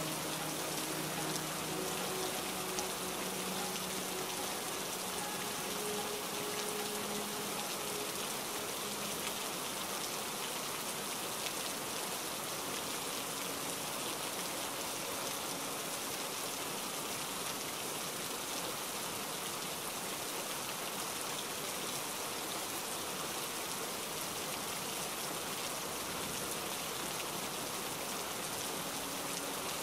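Steady heavy rain falling, an even unbroken hiss.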